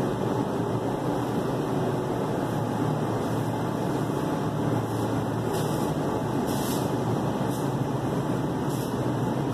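Steady, even rushing noise with no clear tone, with a few faint brief swishes in the second half.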